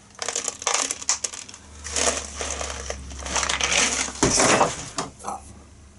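Rummaging through clutter: a dense run of clattering, clicking and crinkling as objects are moved about, while a container of 10mm cast lead balls is sought out.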